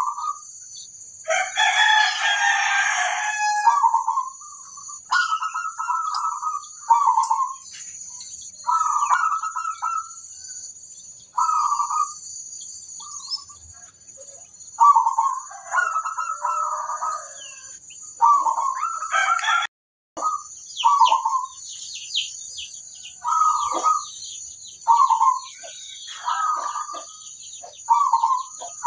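Zebra doves (perkutut) cooing in short repeated phrases, about one a second, several birds calling back and forth. A louder, harsher call lasts a few seconds starting about a second in, over a steady high-pitched hiss.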